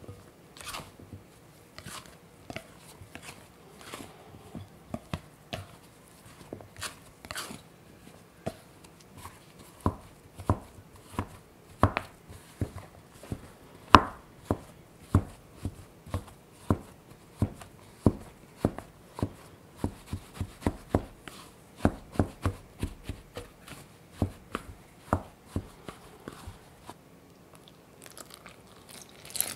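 Plastic dough scraper chopping cold butter cubes into flour in a glass bowl, with sharp taps about twice a second as the blade strikes through to the bowl. The strokes are softer and more scattered at first. Near the end comes a brief splash of cold water being poured onto the flour.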